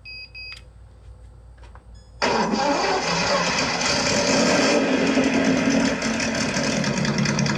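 Sense ESS-Dual engine sound simulator beeping twice, then, about two seconds in, playing a simulated engine start through its speaker that settles into a steady running idle.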